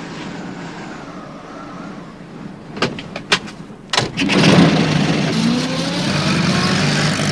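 Wind blowing with a faint wavering whistle, then a few sharp clicks and knocks about three seconds in. About four seconds in, a small van engine starts and keeps running steadily.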